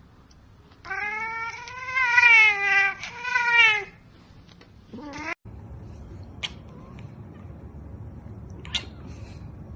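Domestic cat caterwauling: a long, loud, wavering yowl lasting about three seconds, then a short rising cry about five seconds in. A few faint clicks follow.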